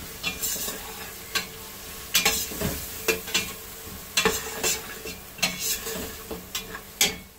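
Chopped onions, whole spices and green chillies sizzling in hot oil in a stainless steel pot as a metal spatula stirs them, scraping against the pot about once a second. This is the spices and onions being lightly roasted.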